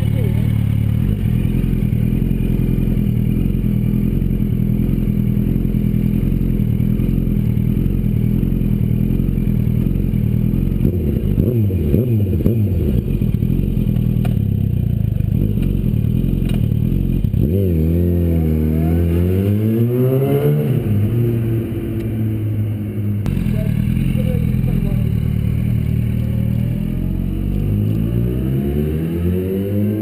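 Yamaha YZF-R1's inline-four engine idling, then blipped through several quick revs a little past halfway. Near the end the revs climb steadily as the bike pulls away.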